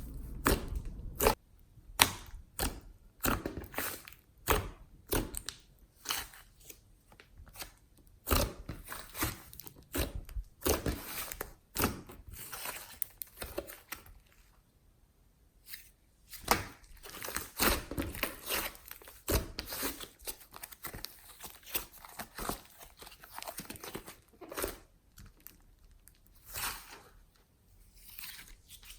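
Glossy slime with flower clay mixed in, squeezed and stretched by hand, giving irregular sticky pops and crackles. There is a quieter pause about halfway through.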